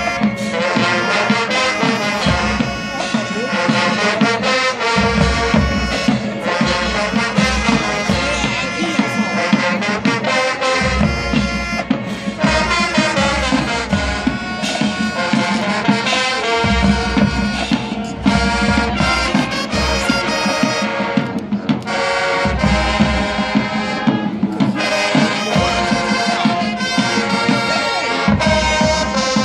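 Marching band playing: brass horns, sousaphones among them, over regular drum beats.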